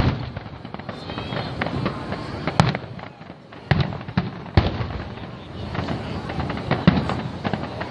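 Fireworks display: aerial shells bursting in a continuous run of bangs and crackling, with several sharper booms standing out, about two and a half, three and a half, four and a half and seven seconds in.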